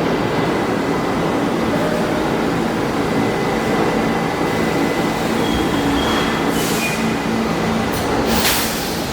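Ride noise inside an R68A New York City subway car running between stations: a loud, steady rumble with a low hum. Brief high wheel squeals come about five and a half to seven seconds in, and a short sharp high screech near the end.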